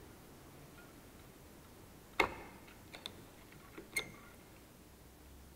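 Hand pop-rivet tool being squeezed on a bracket: one sharp click about two seconds in, then a few fainter clicks about a second and two seconds later.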